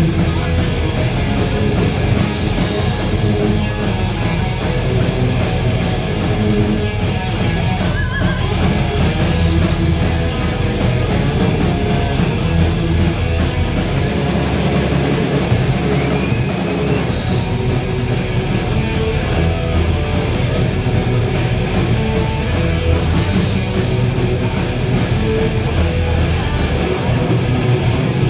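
Heavy metal band playing live at full volume: distorted electric guitars, bass and drum kit in an instrumental passage, loud and unbroken.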